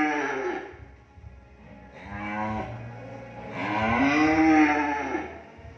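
Cattle mooing: a call trailing off at the start, a short moo about two seconds in, then a longer, louder moo from about three and a half seconds in.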